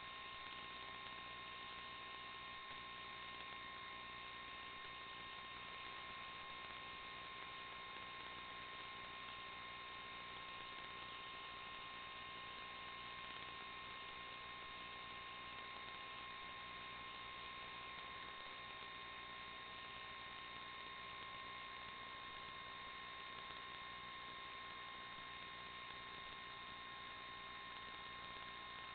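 Steady electronic hiss and hum with a few fixed whine tones, unchanging throughout. This is the noise of an FPV video link's audio channel, with no motor or tyre sound coming through.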